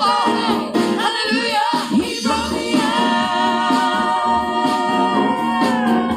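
Gospel singing by a church praise team, voices carrying the melody over accompaniment. Through the second half a singer holds one long note, which falls away near the end.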